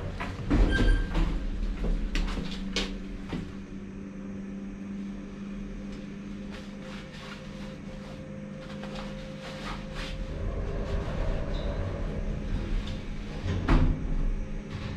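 Glass passenger elevator: its sliding doors close with a couple of knocks about a second in, then the lift's drive hums steadily as the car travels, with another loud knock near the end.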